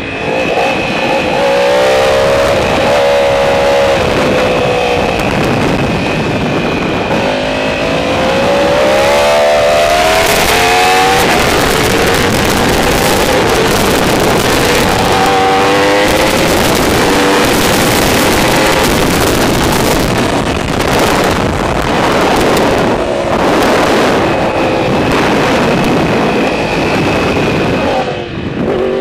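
Superbike engine heard onboard at track speed, revving up through the gears several times with its pitch climbing and dropping back at each shift, over a steady rush of wind.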